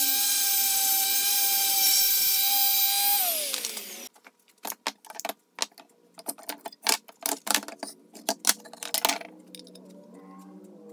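Orbital palm sander running steadily on a painted wooden board, stripping old paint, then winding down with a falling whine about three seconds in. After it, a run of sharp irregular clicks from one-handed bar clamps being ratcheted tight on wooden strips.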